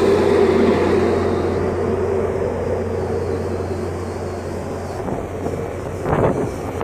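Ship's engine or machinery running with a steady low drone, under the rush of strong wind, with a louder gust of noise about six seconds in.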